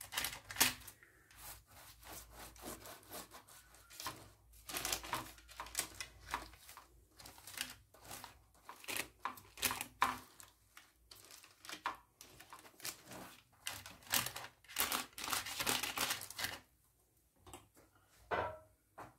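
Baking paper rustling and crinkling as it is pressed into a baking pan and rubbed with oil to grease it. The rustles are quick and irregular, stopping about three seconds before the end, with one last rustle just before it.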